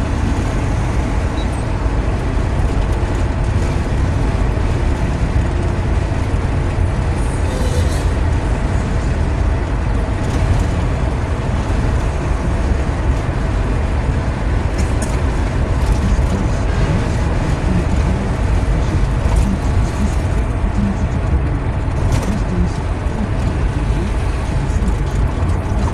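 Steady road noise of a car driving on a highway, heard from inside the cabin: a constant low rumble of engine and tyres.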